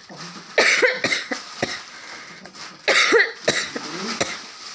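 A person coughing: two loud coughs about two seconds apart, each followed by a few smaller ones.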